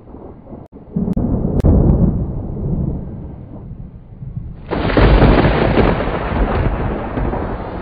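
Thunder rumbling: a deep rolling rumble with a couple of sharp cracks early on, which suddenly grows louder and fuller about five seconds in.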